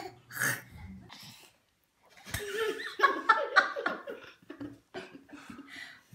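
People laughing in short bursts, trailing off within the first second and a half. After a brief pause, more laughing and voices.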